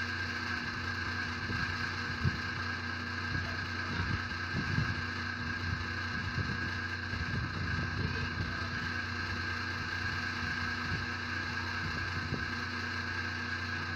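A steady machine hum holding several fixed tones, under soft rustling and light knocks of clothes being handled and hung on a rack.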